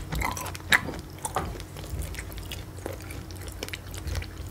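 A person chewing food close to the microphone: irregular small mouth clicks, one louder than the rest about a second in.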